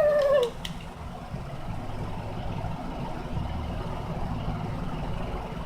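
A child's short, high-pitched wavering whimper that stops about half a second in, followed by a steady low rumble.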